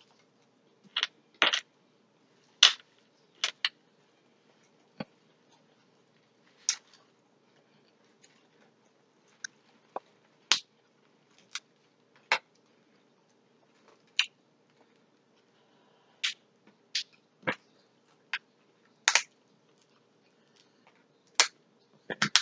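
Eating king crab legs at close range: irregular sharp clicks and snaps, about one a second, as the shell is cracked and picked apart by hand and the meat is eaten.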